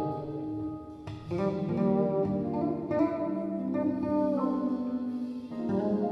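Jazz quartet of electric guitar, electric bass, piano and drums playing an instrumental number.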